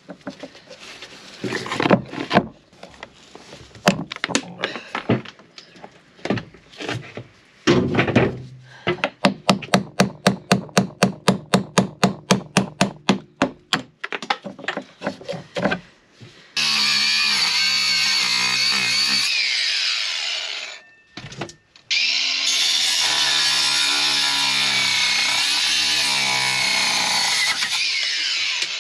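Hammer blows on a steel pin punch driving old copper nails out of a wooden boat frame, irregular at first, then a fast even run of about three strikes a second. Then an angle grinder runs steadily on a rusty exhaust pipe, stops for a moment about 20 seconds in, and starts again.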